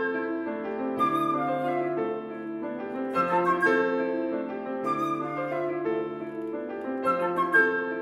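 Flute and grand piano playing together in a live concert performance, with a busy figure that recurs about every two seconds over sustained low piano notes.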